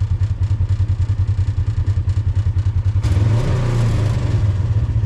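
Polaris RZR UTV engine running at idle with an even, rapid low pulse, picking up briefly about three seconds in as throttle is given through the joystick.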